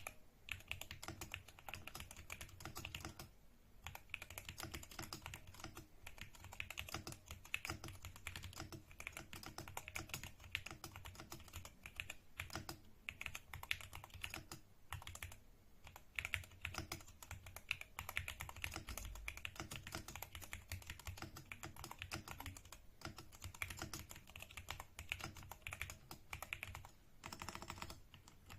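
Fast, continuous typing on a custom mechanical keyboard fitted with new switches: a dense run of keystroke clicks with a few brief pauses, as a sound test of the switches.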